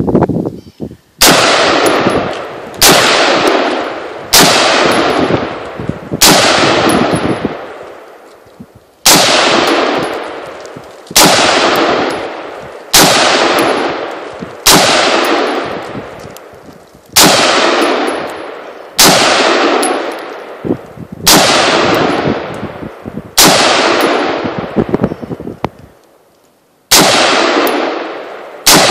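AR-15 rifle fired in single, semi-automatic shots: about fifteen rounds, mostly a couple of seconds apart, with one longer pause about a third of the way in. Each shot is loud and trails off in a long echo.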